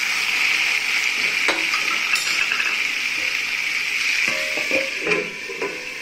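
Sliced water chestnuts sizzling in a little oil in a steel kadhai, stirred with a metal spoon that scrapes and clinks against the pan. Near the end a steel lid goes onto the pan with a ringing clink, and the sizzle gets a little quieter.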